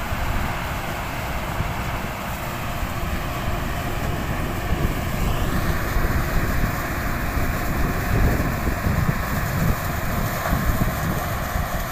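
A tractor-drawn sugarcane harvester at work: the towing tractor's six-cylinder diesel runs steadily under load while the harvester's cutters and blower chop the cane and throw it into the wagon. A whine rises in pitch about halfway through, and wind gusts on the microphone in the second half.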